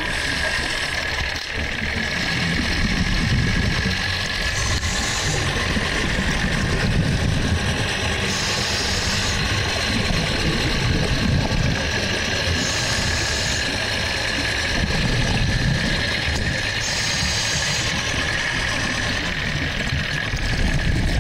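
Underwater recording of a steady engine drone, with a hiss of a scuba diver's exhaled regulator bubbles about every four seconds.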